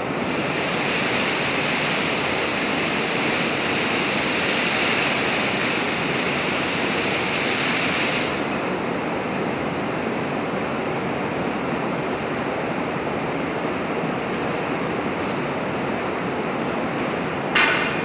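Steady rushing noise of a burning office-cubicle test fire fed by a heptane spray burner. A brighter hiss rides on top for the first eight seconds or so, and a single sharp crack sounds near the end.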